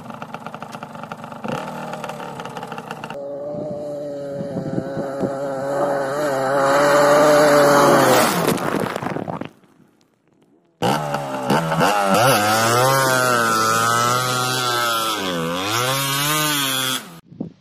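Yamaha DT125's single-cylinder two-stroke engine revving hard, held high and steady for several seconds. It breaks off for about a second midway, then revs up and down repeatedly before dropping away near the end.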